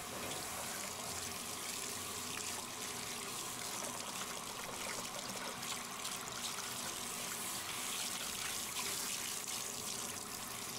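Handheld bathtub shower head running steadily, water spraying onto a wet dog's coat and splashing into the tub.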